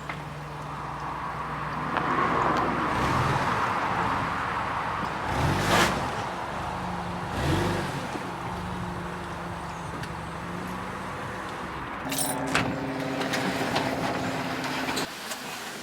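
A car running and driving, with engine and road noise and the engine note rising and falling a couple of times.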